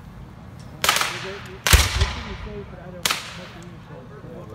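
Black-powder percussion rifle-muskets firing blank charges one after another in a ragged volley: a report about a second in, the loudest one just after, and a weaker one near three seconds, each with a short echo tail.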